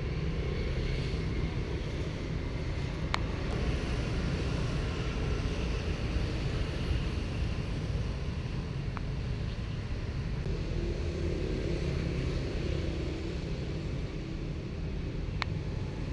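Distant road traffic: a steady low rumble of outdoor city ambience, with two short faint clicks, about three seconds in and near the end.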